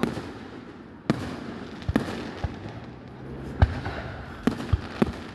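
Fireworks display: aerial shells bursting in a series of sharp booms at uneven intervals, about eight within a few seconds.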